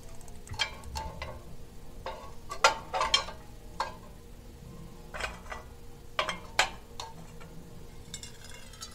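Metal kitchen tongs clinking and scraping against a homemade tuna-can alcohol stove and a cast-iron griddle as the stove is gripped and lifted. It comes as a series of sharp, irregular clinks, the loudest a little under three seconds in and again about six and a half seconds in.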